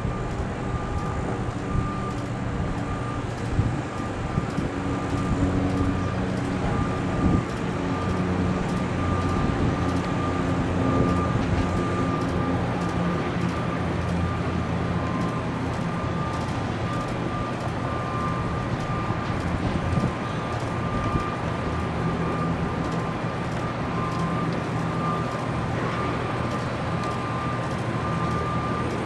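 Heavy diesel engine running steadily, as of a concrete pump on a slab pour, with a steady high whine and faint, evenly spaced ticks over it.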